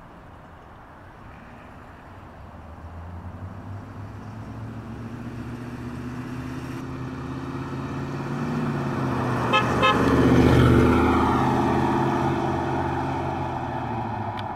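1965 Chevrolet C10 pickup with a ZZ4 350 small-block V8 driving past: the V8 grows louder as it approaches, is loudest as it goes by about ten seconds in, and fades as it drives away. Two quick horn toots sound just before it passes.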